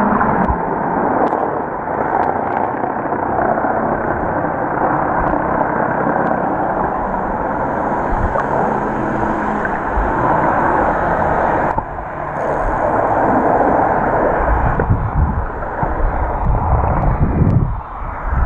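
Steady muffled rushing of water against an action camera's waterproof housing underwater, with heavier low surges near the end as the camera moves close to the surface.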